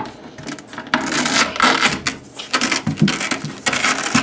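Cork bark panel rubbing and scraping against the glass tank wall and frame as it is pushed and pressed into place, with a few sharp knocks.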